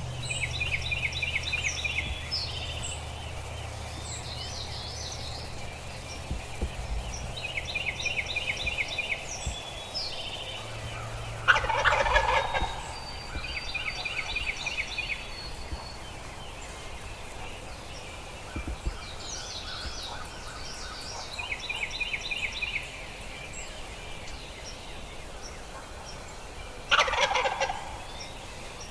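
Wild turkey gobbler gobbling twice, about a third of the way in and again near the end; each gobble is a short, loud rattle. Smaller birds trill repeatedly in the background.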